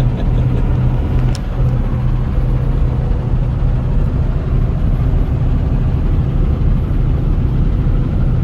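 Steady engine and road noise of a vehicle cruising on the highway, heard from inside the cab as a continuous low hum over a rushing haze. There is one faint click about a second in.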